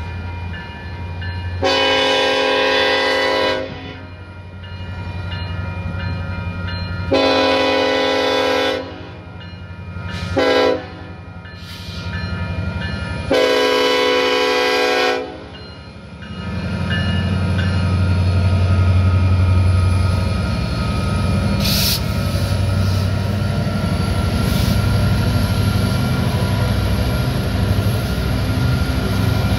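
Union Pacific SD70ACe diesel locomotive blowing its Nathan K5LLA five-chime horn in the grade-crossing pattern: long, long, short, long. From about halfway through, the heavy rumble of the locomotives' diesel engines builds as the lead units reach and pass the crossing, over a crossing bell ringing.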